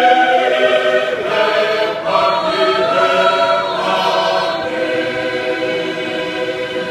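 Tongan church choir of men and women singing together in harmony, in long held chords that grow gradually softer toward the end.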